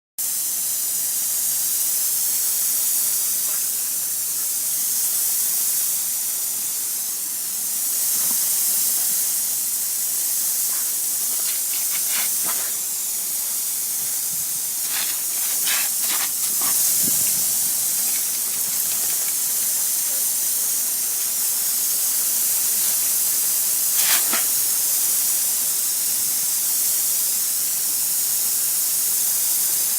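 Garden hose spraying water in a steady hiss, with a few brief louder spatters in the middle and one near the end.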